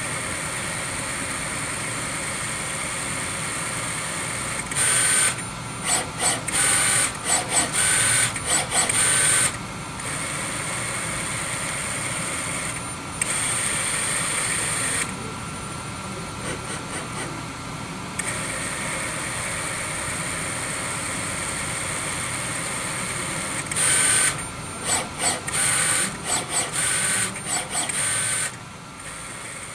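Harmonic Drive SHA-series servo actuator (AC servo motor with strain wave gear) running under servo control: a steady high whine, broken twice by a run of short, louder start-stop moves that come and go several times a second.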